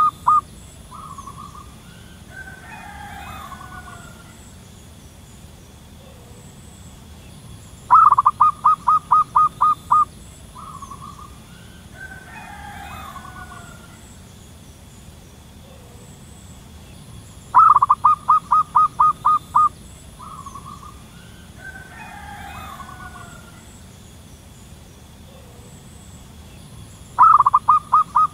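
Zebra dove singing: a rapid run of about nine short, clipped cooing notes over about two seconds, ending in one brief note. The run repeats about every ten seconds, three times, with a fainter, less regular call a few seconds after each run.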